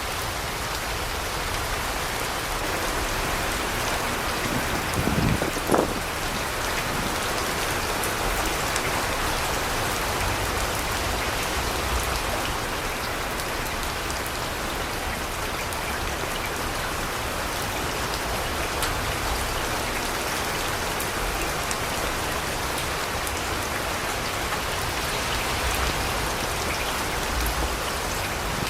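Steady rain falling, an even hiss of drops on surfaces, with one brief louder sound about six seconds in.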